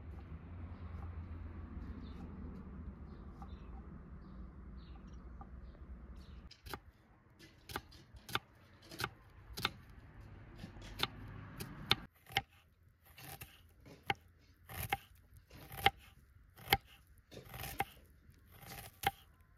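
Food being cut with a blade: sharp separate cutting strokes roughly once a second, starting about six and a half seconds in. Before that, a low steady noise stops abruptly.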